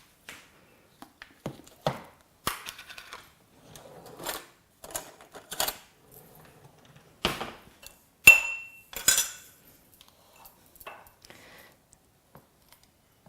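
A spoon and kitchen containers clinking and scraping as honey is added to ground herbs in a jar: scattered taps and knocks. The loudest is a sharp clink about eight seconds in that rings briefly.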